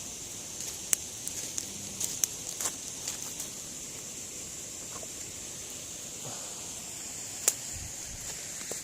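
Wood campfire crackling: a few sharp pops, the loudest about a second in and about seven and a half seconds in, over a steady high hiss.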